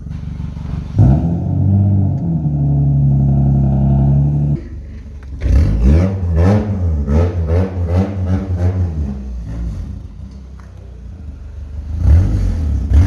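1995 Mazda 626's engine being revved: about a second in it jumps from idle to high revs and is held there for a few seconds. It then drops and is blipped up and down several times before settling back toward idle, and is revved again near the end.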